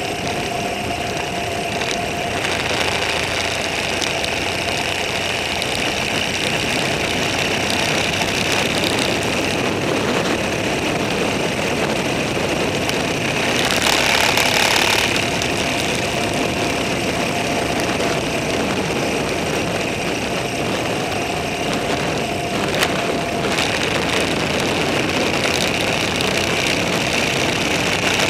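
A vehicle engine running steadily while on the move, with road and wind noise. There is a louder rush of noise about halfway through and a single click late on.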